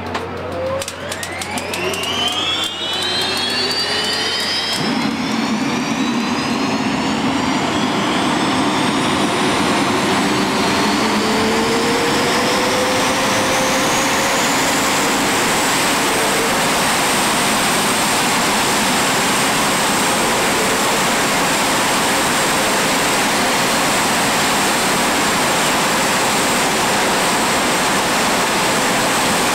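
A jet funny car's turbojet engine spools up. A whine rises steadily over about fifteen seconds, then holds as a steady high whine over a loud rush. Rapid clicking comes in the first few seconds, and the rush grows much louder about five seconds in.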